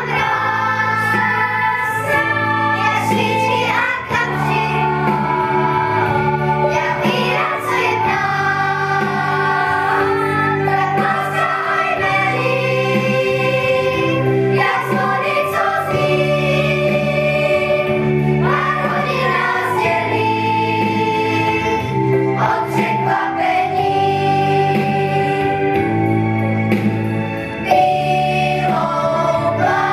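Children's choir singing a song together, held notes moving from pitch to pitch without a break.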